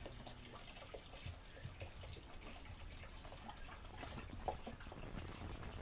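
Antifreeze pouring from a plastic gallon jug into a plastic funnel and down a hose into a boat engine's sea strainer, a faint, steady trickle with small splashes. This is the raw-water side of the port engine being filled with antifreeze to winterize it.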